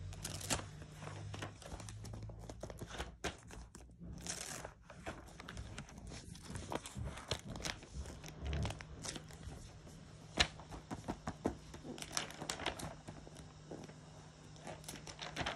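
Sticker paper and album pages being handled: irregular rustling and crinkling with scattered small clicks and taps, and a sleeve brushing against the phone's microphone.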